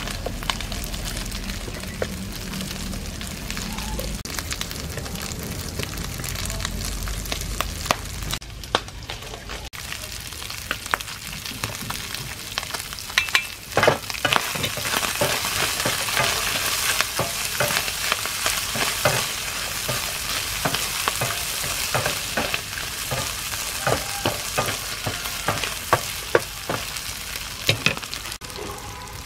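Eel pieces, chopped garlic and chili frying in hot oil in a nonstick pan: a steady sizzle broken by many sharp clicks and scrapes of a spatula stirring. The hiss grows stronger from about halfway through.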